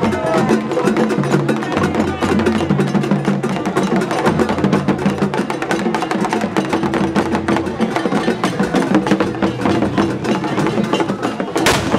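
Festival music: rapid, dense clicking percussion strokes over low held notes. A single sharp bang cuts through near the end.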